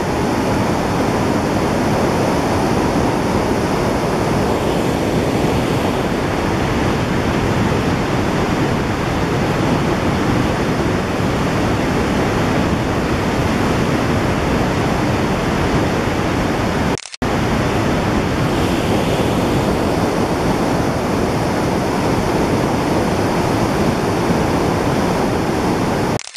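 Baspa River rushing in full flow over rocks: a loud, steady rush of white water. It cuts out briefly about two-thirds of the way through, then resumes unchanged.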